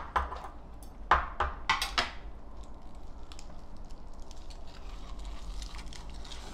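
Metal chopsticks and a spoon clinking against dishes during a meal: several sharp clinks in the first two seconds, then lighter scattered taps.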